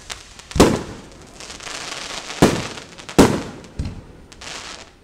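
Aerial firework shells bursting: four sharp bangs, three loud and one smaller, each fading away quickly, with a crackling hiss between them.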